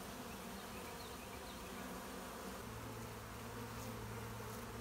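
Honeybees buzzing steadily as the colony pours out of its nest and absconds, driven out with Bee-Quick repellent spray. A lower steady hum joins about two and a half seconds in.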